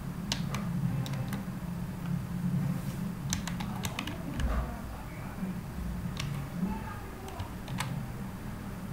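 Computer keyboard being typed on: irregular keystroke clicks, a few at a time with short pauses between, over a steady low hum.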